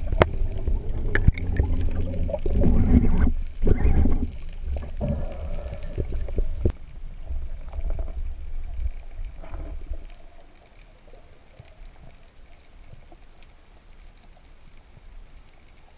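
Underwater water noise at a spearfisher's camera during a descent: an uneven low rumble with gushes of water sound, loud for about ten seconds, then dropping to a faint hiss as the movement settles.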